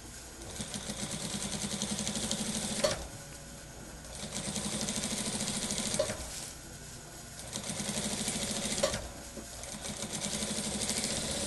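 Industrial lockstitch sewing machine stitching a dress-shirt seam in four short runs, a fast even chatter that speeds up at each start and stops with a sharp click. It is sewing while the thread tension is checked.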